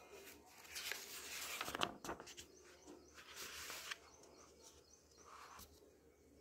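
Paper rustling as a printed exam booklet's page is handled and turned, in two bursts about a second long, the second ending abruptly.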